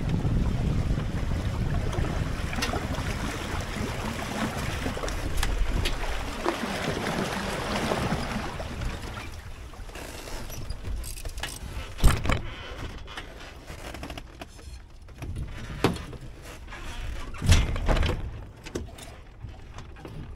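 Wind on the microphone and water rushing along a Hobie Cat 18 catamaran's hulls, a steady low rush that dies away about halfway through as the boat tacks and slows. After that, several sharp knocks from the boat, the loudest about twelve seconds in.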